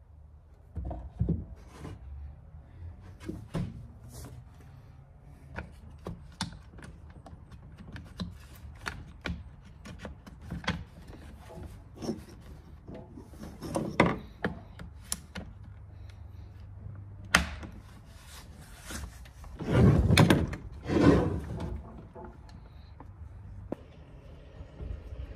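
Clunks, knocks and small clicks of a chainsaw and its wrap handle being handled and fitted, hard parts and hand tools bumping on a plastic truck bed liner. Two heavier thuds come close together about twenty seconds in as the saw is moved.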